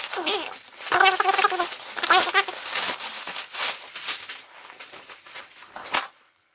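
Thin plastic packaging bag crinkling and rustling as a jacket is pulled out of it and spread flat, with two short pitched squeals about one and two seconds in.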